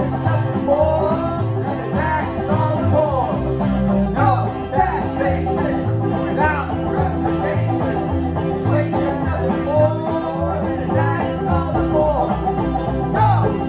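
Live banjo and upright double bass playing an instrumental passage: the bass plucks a steady line of low notes while the banjo picks a lead above it, with some notes sliding in pitch.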